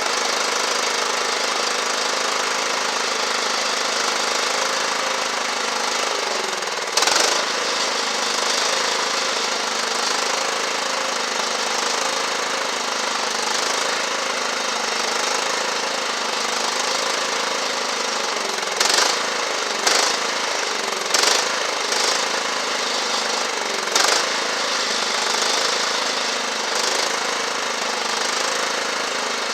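Craftsman riding lawn mower's small gasoline engine running steadily, with several sharp knocks: one about seven seconds in and a run of them a little past the middle.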